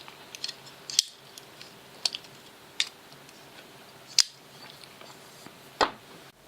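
Jason Brous Bionic flipper folder knife being opened and closed again and again: a series of about six sharp metallic clicks, roughly a second apart, as the blade snaps open on its bearing pivot and the liner lock engages and releases.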